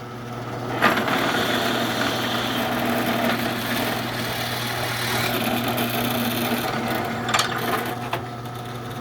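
Drill press motor running with a steady hum, and from about a second in the bit cuts into a clamped workpiece with a continuous rasping noise. The cutting stops about eight seconds in, with a couple of sharp knocks as the bit is backed out.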